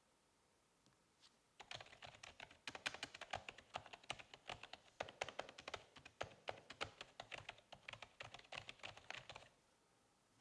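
Typing on a Spirit of Gamer Pro K5 gaming keyboard: a fast, uneven run of key clicks that starts about one and a half seconds in and stops about a second before the end.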